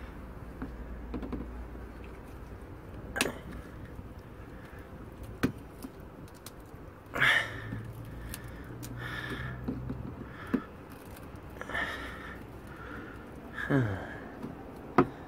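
Scattered clicks and knocks of a hand wrench on a bolt and a car's plastic underbody panel, with a few short scraping rustles in between.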